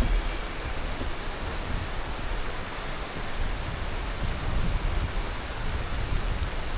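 Tropical monsoon rain falling steadily in an even hiss, with a low rumble underneath.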